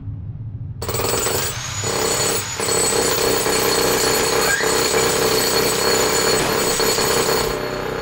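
Jackhammer starting abruptly about a second in and hammering loudly and steadily, turning duller near the end.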